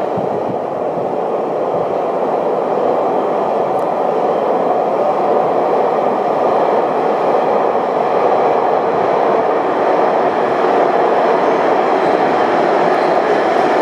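Beijing subway train running, a steady rail noise that grows slowly louder.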